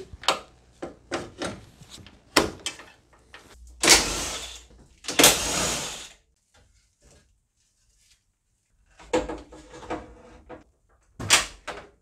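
Workshop handling noises from tools and engine parts: scattered knocks and clicks, two rushing scrapes of about a second each around four and five seconds in, and a sharp knock near the end.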